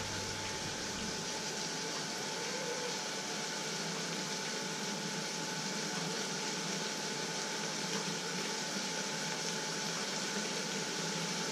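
Steady, even hiss of kitchen background noise with a faint steady hum, unchanging throughout and with no knocks or clinks.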